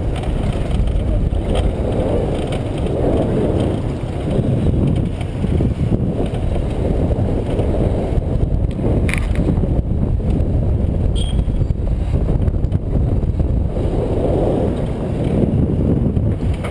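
Steady rush of wind and engine noise from a small motorcycle taxi riding along a dirt road, heard from on the bike.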